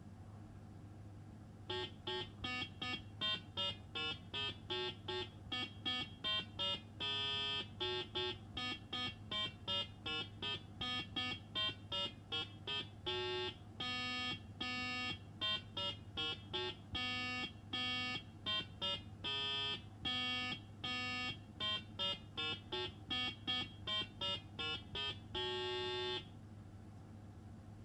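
RadioShack Learn-to-Solder kit's electronic piano playing a tune of separate electronic beeping notes, about two a second, one pitch at a time. A steady low hum runs under it.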